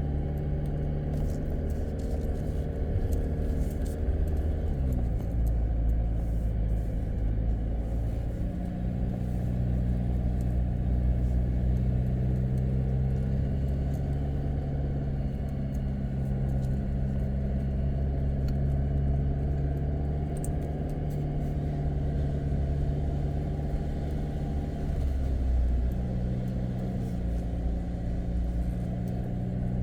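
Jeep Wrangler Rubicon engine running as the vehicle is driven, with a steady low drone. The engine note drops about four to five seconds in and changes again around eight seconds and near the end.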